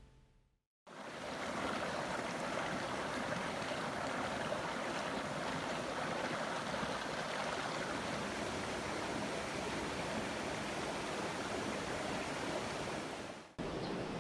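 Steady rush of a mountain valley stream's flowing water. It breaks off for a moment near the end and resumes.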